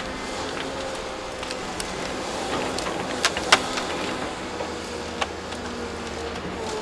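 Cat 330 excavator running steadily with a low, even engine hum, with scattered sharp snaps over it, the loudest two close together about three and a half seconds in.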